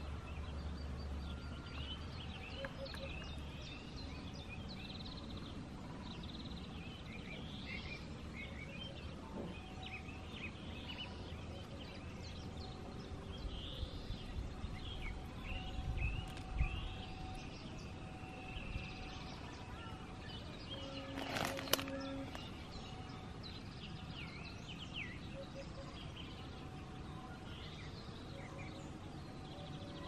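Woodland ambience with many birds calling and chirping throughout, over a steady background hiss, and a couple of brief louder sounds a little past the middle.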